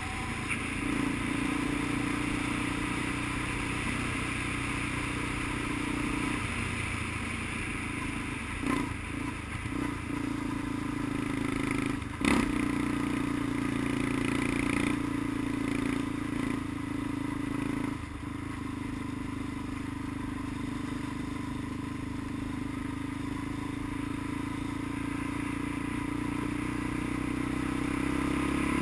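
Off-road vehicle engine running steadily as it rides along a dirt trail, easing off briefly a couple of times. There is a sharp knock about twelve seconds in.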